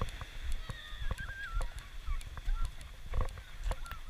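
Footsteps crunching on a sand-and-pebble beach, a step every half second or so. Over them come a few short, wavering bird calls, the clearest just after a second in.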